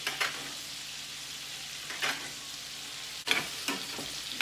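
Shell steaks searing in a pan of melted butter with garlic and rosemary, sizzling steadily, with a few sharper spatters as the hot butter is basted over them.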